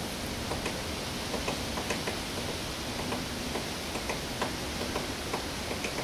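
Woodpecker pecking at the wooden boards of a house wall: single, unevenly spaced taps, about two a second.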